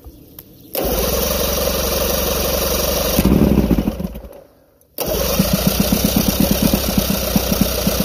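Electric starter cranking an old Mercury 80 hp inline-four outboard in two attempts, each about four seconds long, with a short pause between them. The second attempt has an even chug of compression strokes. This is a hard-start test with the new enrichener valve pumping fuel into the crankcase.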